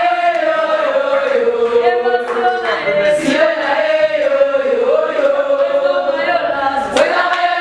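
A group of young women singing a chant together in unison, one steady melody carried by many voices.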